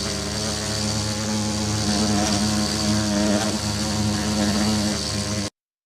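Homemade bee sound effect: a steady, low buzzing drone that cuts off suddenly near the end.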